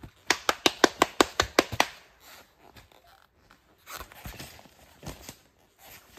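A partridge pecking at a rider's hard motocross boots: a rapid run of about ten sharp taps, some six a second, for a second and a half. A few softer scuffs of boots on forest dirt follow as he steps away.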